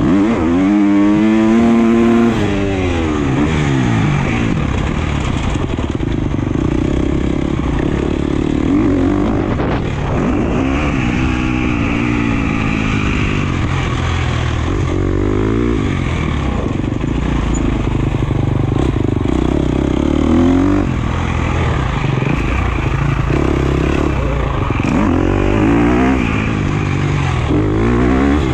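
Husqvarna FC250 single-cylinder four-stroke motocross engine revving hard, its pitch climbing and dropping again and again as the throttle is opened, shifted and closed around the track.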